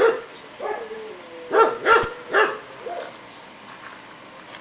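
A dog barking, about six short barks, the loudest three in a quick run near the middle.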